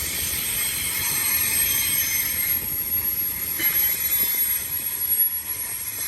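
BNSF intermodal freight train's cars rolling past: a steady noise of wheels on rail, with faint high-pitched tones above it.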